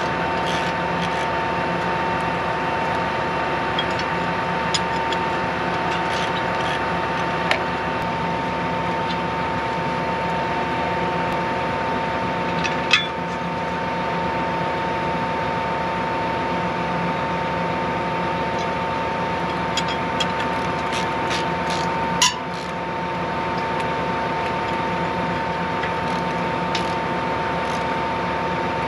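John Deere 8235R tractor idling with a steady hum and whine, while a few sharp metal clinks come from a wrench and knife on a strip-till row unit during a knife change, the loudest two about 13 and 22 seconds in.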